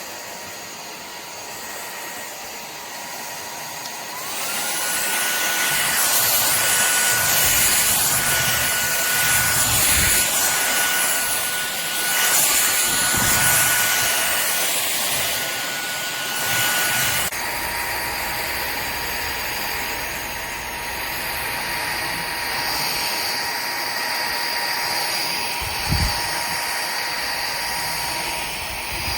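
Powerffy N10 cordless stick vacuum running with a steady high motor whine. About four seconds in, the whine glides up in pitch and grows louder, then drops back to the lower pitch about seventeen seconds in. A brief low thump comes near the end.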